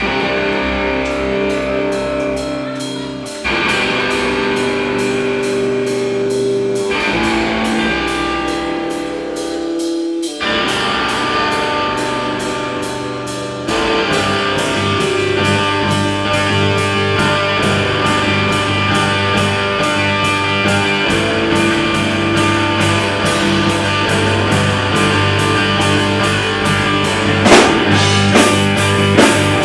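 Live rock band playing an instrumental song intro: electric guitar chords with drums, the chord changing every few seconds. About 14 seconds in, the band comes in fuller, with a heavier low end.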